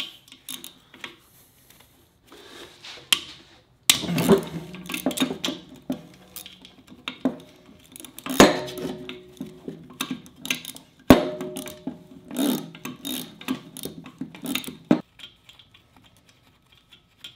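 Socket wrench on a wobble extension loosening a bolt on the back of a Subaru EJ205 engine case: irregular scraping and clicking of the tool with metal clinks, and two sharp metallic knocks that ring briefly, about eight and eleven seconds in.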